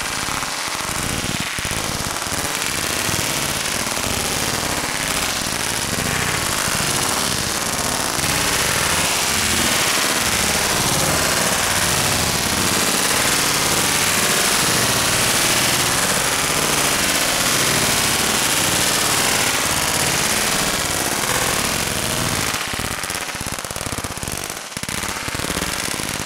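A roll of 1000 Black Cat firecrackers going off in one continuous, rapid string of bangs for over twenty seconds, thinning into scattered pops with short gaps near the end.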